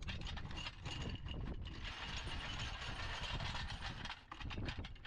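Belt of linked cannon rounds for an AH-1Z Viper clinking and ratcheting as it is fed by hand into the helicopter's ammunition bay: a rapid, uneven run of metallic clicks.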